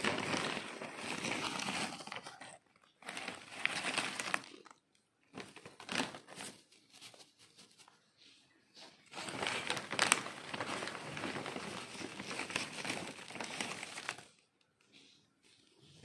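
Timothy hay rustling and crackling as a hand stirs and grabs it, in several bursts, the longest in the second half.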